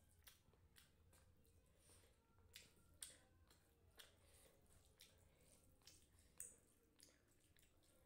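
Faint eating sounds: wet mouth clicks and chewing, with soft squishing of noodles being mixed by hand on a plastic plate. About eight sharp little clicks at uneven intervals, the loudest about three seconds in and again past six seconds.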